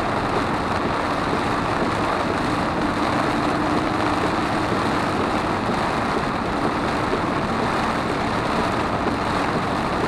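Steady road noise of a car driving on a wet highway in heavy rain, heard from inside the cabin: an even hiss and rumble of tyres on the wet road and rain on the car, with no breaks.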